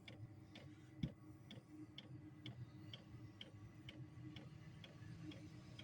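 Diesel air heater's fuel dosing pump, fed with kerosene, clicking faintly and evenly about twice a second as it pulses fuel, over the low steady hum of the heater running after firing.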